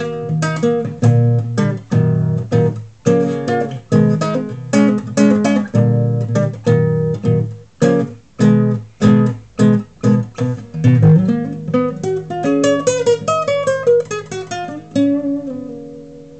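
Nylon-string classical guitar played fingerstyle: syncopated, percussive chord stabs separated by short rests. After about 11 s a fast run of single notes steps down in pitch over a held bass note, and the last notes are left to ring and fade out near the end.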